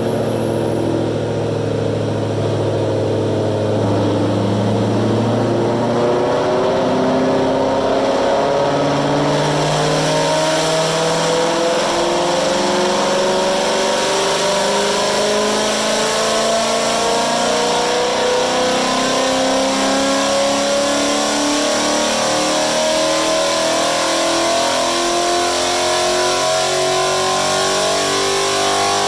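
A Gen 3 Ford Mustang Coyote 5.0 V8 with full aftermarket exhaust running on a chassis dyno. It holds a steady low note for about four seconds, then climbs slowly and steadily in revs through a long pull.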